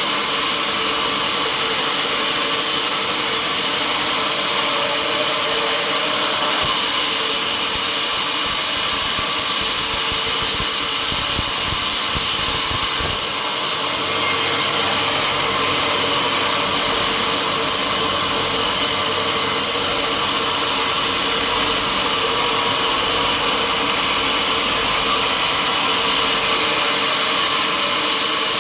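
Sawmill running steadily, its blade sawing through a log, with the engine's drone under the cutting noise.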